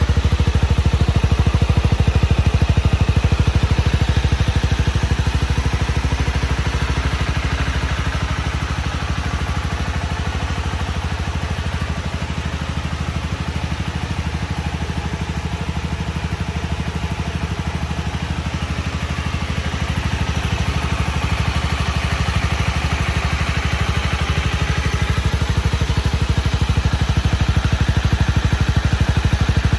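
2023 Honda CB250R's single-cylinder engine idling steadily through its stock exhaust, a little quieter for several seconds in the middle.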